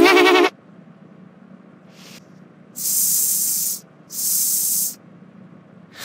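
A short wavering bleat-like vocal call at the start, then two loud hisses of about a second each: a voice imitating animal sounds.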